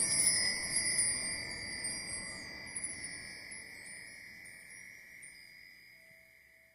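Chimes ringing: a high shimmering chord struck at the start, with small tinkling notes above it, dying away over about six seconds.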